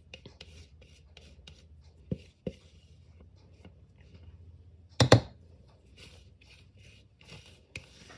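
Spatula scraping batter out of a mixing bowl: a run of short scrapes and taps, with a louder knock about five seconds in.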